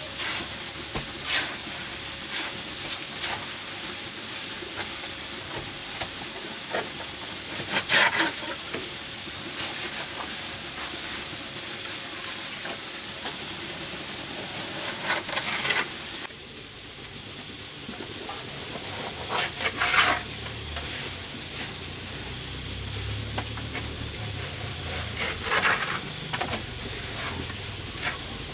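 Steel trowel scraping and spreading wet cement mortar: a few gritty scrapes several seconds apart over a steady hiss.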